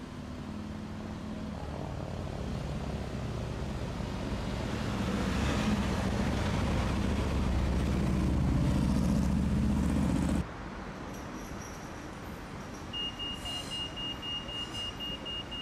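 Road traffic: a motor vehicle's engine grows steadily louder for about ten seconds, then cuts off abruptly. Quieter street noise follows, with a rapid high-pitched beeping near the end.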